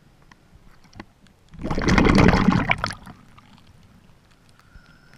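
Seawater splashing and sloshing close to the microphone in one loud rush of about a second, with faint lapping and small clicks of water before and after.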